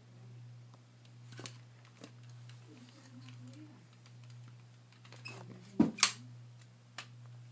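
Scattered soft clicks and taps over a steady low hum, with two louder knocks close together about six seconds in and another about a second later.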